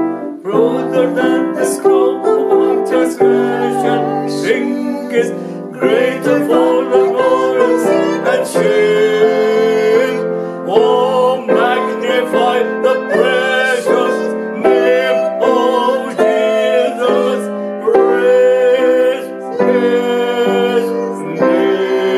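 A woman and a man singing the refrain of a gospel hymn together, accompanied by an upright piano.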